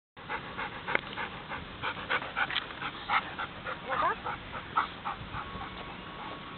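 Groenendael Belgian Shepherd panting close to the microphone, about four breaths a second, easing off after about five seconds, with a brief whine about four seconds in.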